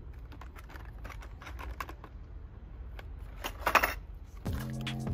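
Small clicks and crackles of a plastic blister pack and metal screw-in eye hooks being handled, with the hooks and chain clinking and a louder metallic rattle a little before four seconds in. Background music comes in near the end.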